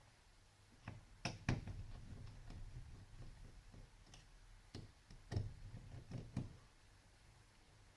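Faint, scattered clicks and light knocks from hands and tools working on an opened laptop while its fastenings are taken out. The sharpest come about a second and a half in and again around five seconds.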